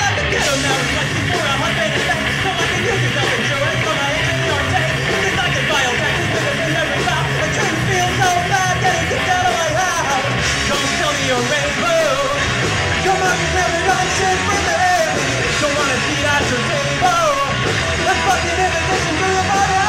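Punk band playing live: shouted lead vocals into a microphone over electric guitars and bass, loud and continuous.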